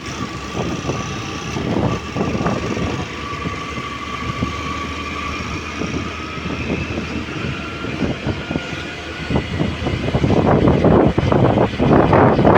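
Steady rumble and irregular rattling of a moving vehicle, heard from on board, growing louder about ten seconds in.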